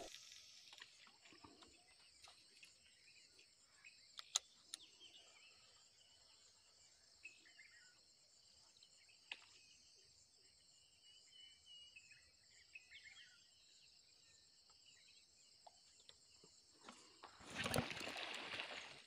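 Quiet outdoor ambience: a steady high chirring of insects, with a few faint chirps and sharp clicks scattered through it, then a louder rustling rush near the end.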